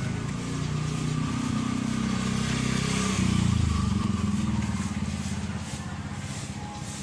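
Toyota Big Body car engine running, revved up briefly about three seconds in and then settling back.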